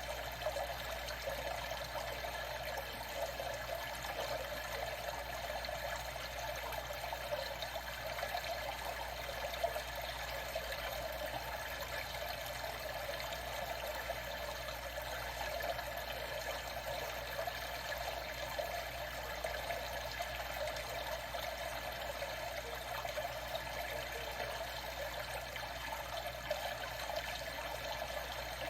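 Water trickling and lapping in a steady, even wash with no distinct strokes or splashes.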